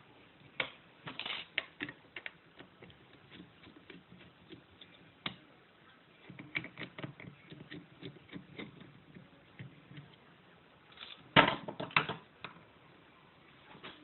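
Scattered light metallic clicks and scrapes of picking tools working inside a mortice lock, with a louder cluster of clicks and clanks about eleven and a half seconds in.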